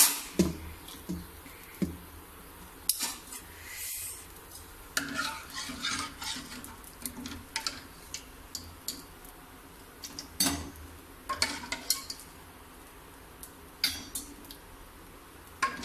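Stainless-steel ladle scooping thick dal from a steel pressure cooker into a small steel bowl, clinking and scraping against the metal in scattered knocks.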